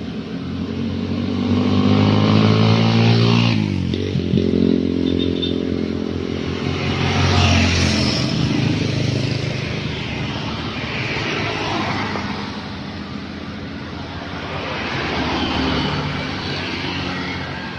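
Road traffic passing close by: several vehicles, including a motorcycle and a car, each engine and tyre noise swelling and fading as it goes by. The pitch of one vehicle's engine drops as it passes about three and a half seconds in.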